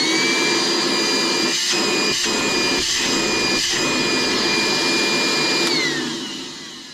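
DeWalt DCV581H 18/20-volt cordless wet-dry vacuum running on a 20-volt battery: the motor spins up with a rising whine, runs steadily with a high whine over rushing air, then is switched off about six seconds in and winds down with a falling whine.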